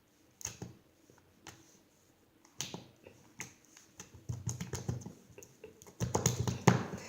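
Slime being squeezed and pressed in the hands, making sharp clicking and popping sounds: a few single clicks about a second apart, then denser squelchy clicking over the last three seconds.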